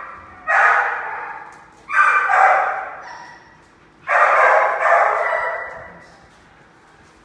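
A dog barking in long, drawn-out barks that start sharply and trail off, three of them, the last, about four seconds in, the longest.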